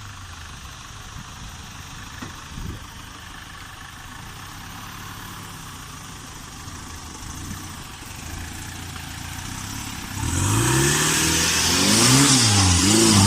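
Off-road vehicle's engine running low and steady, then revving hard about ten seconds in, its pitch rising and falling in several swells over a loud rushing noise.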